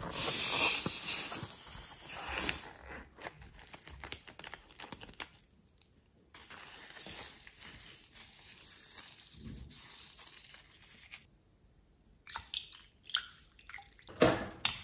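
Thick slime squeezed and stirred by hand in a glass bowl: wet squishing with sticky clicks and crackles. A steady rushing sound fills the first couple of seconds, and a louder squelch comes near the end.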